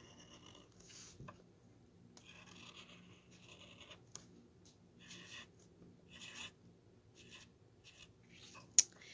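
Felt-tip marker drawing on a wooden spoon: faint, short scratchy strokes, several separate ones, with one sharp click near the end.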